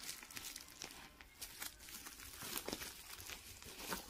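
Plastic courier mailer bag crinkling and crackling in irregular bursts as it is handled and opened.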